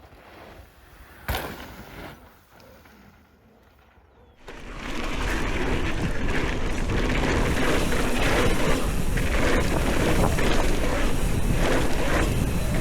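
Mountain bike on a trail: tyre and rattling noise with wind over the microphone, cutting in suddenly about four and a half seconds in after a quieter stretch with one sharp click.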